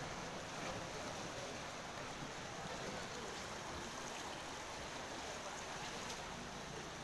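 Steady rushing of a river in flood, a continuous even wash of water noise.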